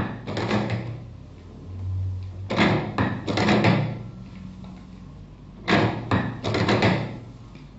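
Printing press working through its cycle, the sound effect for printing one card per stroke. Each stroke is a cluster of clunks and clicks, about every three seconds, three times, with a short low hum between strokes.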